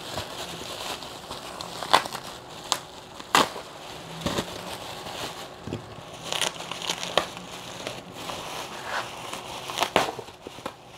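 Bubble wrap crinkling and rustling as hands unwrap it, with sharp cracks at irregular moments, the loudest about two, three and a half, and ten seconds in.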